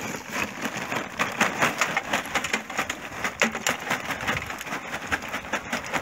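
Lump charcoal tumbling out of a paper sack into a metal grill tray: a dense, irregular run of small clatters and clicks as the pieces land on each other.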